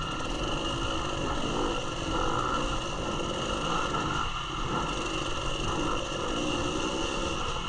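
Dirt bike engine running on an off-road trail, the revs rising and falling as the rider works the throttle over rough ground.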